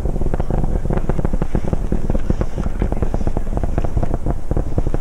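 Titan III rocket launch roar: a loud, steady deep rumble thick with rapid crackling.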